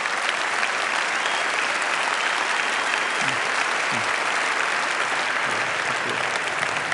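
Large audience applauding steadily, a dense even clapping that holds at full strength throughout.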